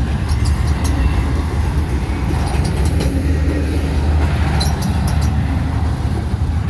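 Intermodal freight train's cars rolling past as the train slows: a steady low rumble of wheels on rail with scattered sharp clicks.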